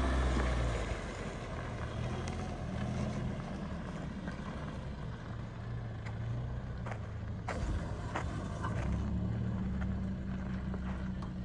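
A 2024 Toyota Tacoma TRD Off-Road pickup's engine running at low revs as the truck crawls past and away over sandy ruts. It is loudest about the first second, when the truck is closest, and a few sharp clicks come near the middle.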